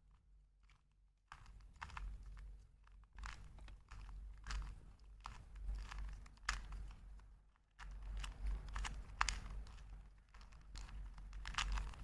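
A 2x2 Rubik's cube being twisted quickly to scramble it: fast runs of plastic clicks and rattles as the layers turn, starting about a second and a half in and pausing briefly near the eight-second mark.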